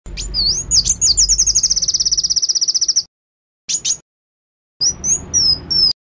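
Small songbird singing loudly: a rapid run of sharp, high repeated notes, about fifteen a second for some two seconds, then a short burst and a few quick high whistled slurs near the end, separated by dead gaps.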